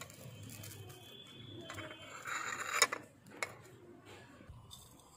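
A short scrape about two seconds in ends in a sharp knock, followed a little later by a second, lighter knock.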